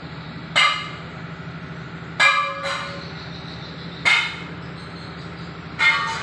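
Hammer striking steel, four ringing metallic blows evenly spaced about every two seconds, over a steady low hum.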